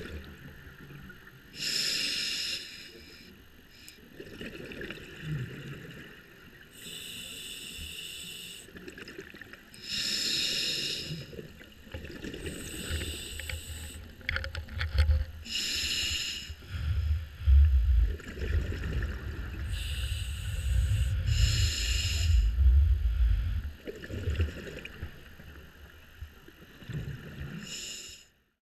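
Scuba diver breathing through a regulator, heard underwater: a rush of exhaled bubbles about every two to four seconds, eight or so times, over a steady hiss and a low rumble of water movement.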